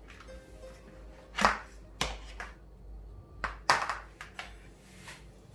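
Round aluminium baklava trays being handled and shifted on a wooden counter: a few sharp knocks and scrapes of the metal pans, the loudest about a second and a half in and again near four seconds.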